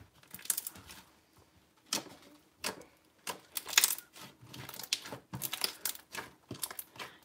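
Soft orange inflating slime being kneaded and squished by hand, giving irregular quick clicks.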